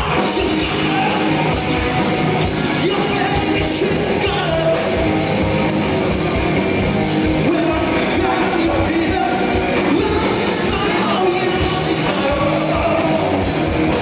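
A rock band playing live, with a singer over drums and amplified instruments.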